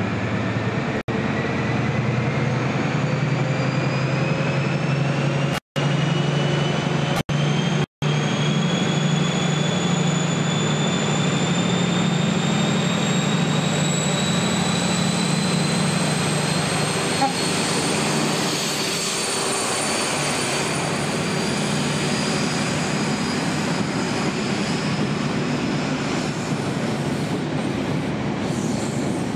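InterCity 125 (HST) high-speed diesel train running past on the platform road: a steady diesel drone with a whine that rises slowly in pitch over the first twenty seconds, then evens out.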